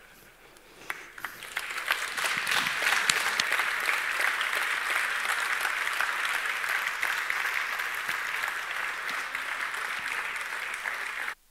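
Audience applauding: many hands clapping, swelling from about a second in and holding steady, then stopping abruptly near the end.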